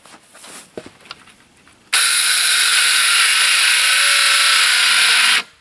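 Circular saw cutting through an old plywood board: a loud, steady cutting noise starts about two seconds in and stops abruptly about three and a half seconds later. Before it come a few light knocks of the board being handled.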